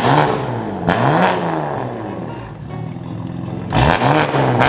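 Straight-piped BMW engine revved in several quick blips, each one rising and falling in pitch, with a lull in the middle before more revs near the end.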